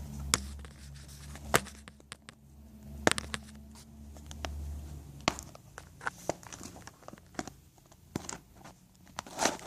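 A small cardboard box being opened by hand: packaging rustling, crinkling and tearing, with scattered clicks and knocks, the loudest just before the end. A low hum runs underneath and stops about five seconds in.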